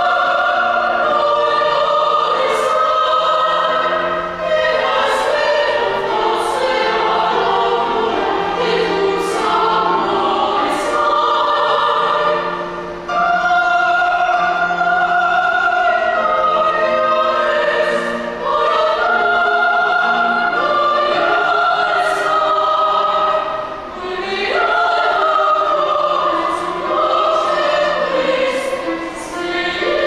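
Several classically trained voices, sopranos and a tenor, singing a zarzuela ensemble in operatic style with grand piano accompaniment, in long held phrases with brief breaks between them.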